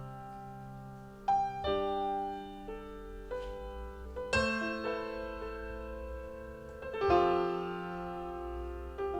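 Slow, quiet instrumental music played back through Advent Laureate loudspeakers: single notes and chords are struck and left to ring, a new one every second or two, with a louder chord about halfway through.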